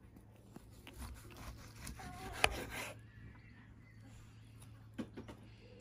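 Knife sawing through a smoked picanha steak on a wooden chopping board, a soft rasping drag, with one sharp tap about two and a half seconds in.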